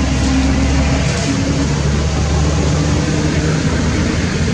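A steady low engine rumble, as from a motor vehicle running, with a hum that shifts in pitch a couple of times.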